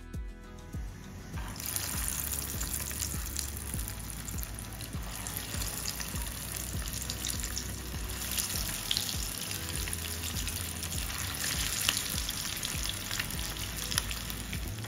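Beef tikia kabab patties frying in hot oil in a pan: a steady, crackling sizzle that starts about a second and a half in as the patties go into the oil.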